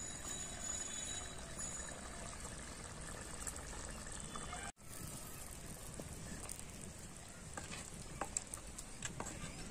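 Wooden spatula stirring a thick fish curry in a clay pot, with a few light knocks and scrapes against the pot in the last couple of seconds, over a steady hiss. The sound cuts out briefly just before halfway.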